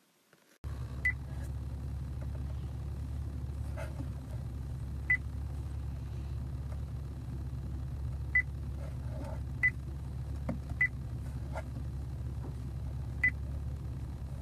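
Car engine idling steadily after a fresh oil change, a low even rumble that starts suddenly. Half a dozen short high-pitched chirps sound over it at irregular intervals.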